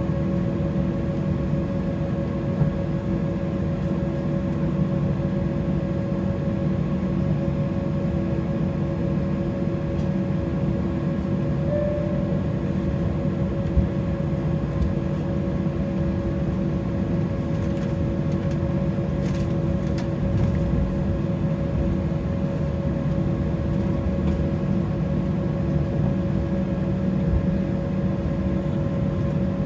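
Cabin noise inside an Embraer E190 airliner with its jet engines running at low power: a steady rumble with several constant whining tones over it.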